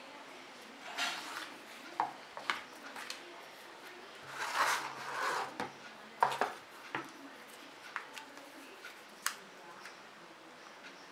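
Handling of a phone and its packaging during unboxing: scattered sharp clicks and taps with short rustles, the busiest stretch about four to six seconds in.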